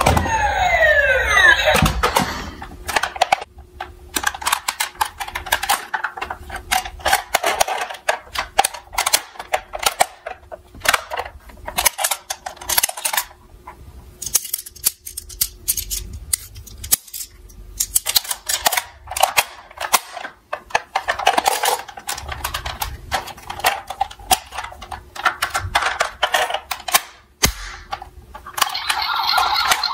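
Plastic toy vehicles being handled in a cardboard box: irregular clicks, taps and clatter of hard plastic parts as the toy ambulance's rear doors and stretcher ramp are worked. A falling electronic toy siren stops about two seconds in, and another toy's electronic siren starts near the end.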